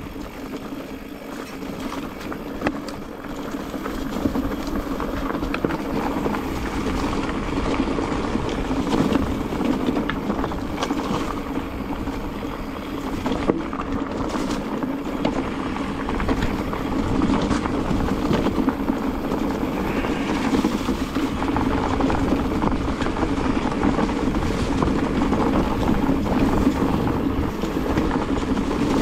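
Mountain bike rolling down a rough singletrack: tyres on dirt, stones and dry leaves, with a constant rattle and many small knocks from the bike over the bumps.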